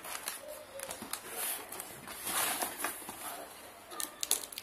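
Small scissors snipping and sliding through plastic packing tape on a cardboard box, then the cardboard flaps being pulled and rubbed open, with a few sharp clicks about four seconds in.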